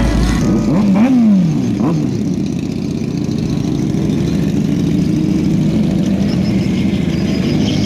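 Sport motorcycle engines. About a second in there are quick revs, rising and falling in pitch. After that the engines settle into a steady drone as several bikes ride off.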